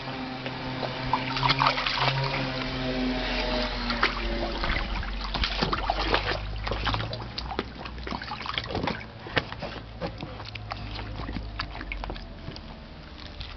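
Water splashing and sloshing in a small pool as a dog plays in it: many short, irregular splashes, over a steady low hum.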